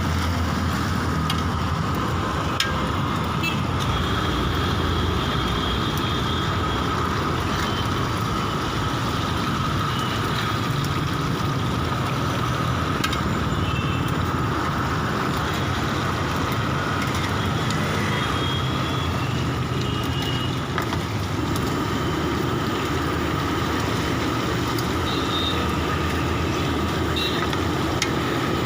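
Steady rumbling hiss of a cooking flame under a pan of fish frying, with a faint steady whine running through it.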